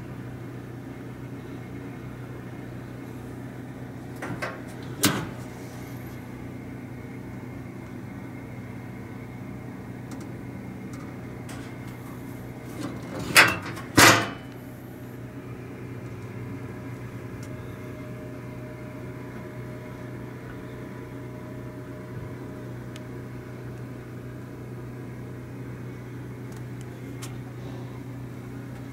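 A steady low hum, with a few sharp knocks: two loud ones close together about halfway through from the hinged two-piece cooktop cover of a Magic Chef range being handled, and a softer pair earlier.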